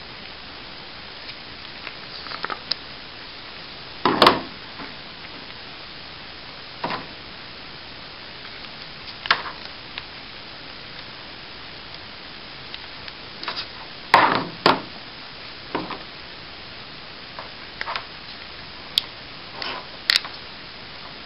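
Scattered plastic clicks and knocks as a large syringe and a King airway tube are handled and the syringe is worked on the cuff inflation line, over a steady hiss. The loudest knocks come about four seconds in and again near the middle.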